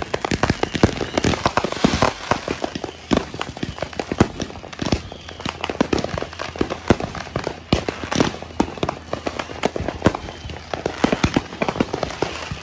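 Many fireworks and firecrackers going off at once: a dense, irregular barrage of sharp bangs and cracks with no pause, some much louder than others.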